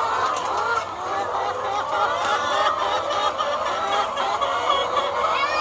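A large flock of layer hens clucking together: a steady, dense chatter of many overlapping calls, with one louder rising call near the end.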